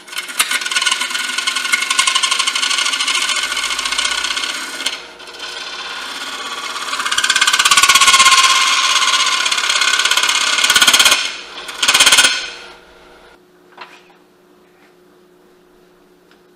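Turning tool cutting the base of a wooden bowl spinning on a wood lathe, a loud scraping hiss of shavings coming off in long passes. The cut eases off briefly after about five seconds and ends with two short touches. Then only the lathe motor's steady hum remains.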